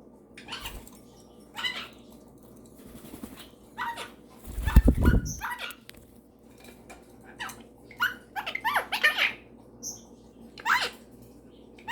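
Short, high calls and chirps from pet parrots, a superb parrot and a young cockatiel, coming singly and in quick clusters at irregular intervals. A louder low thud comes about five seconds in.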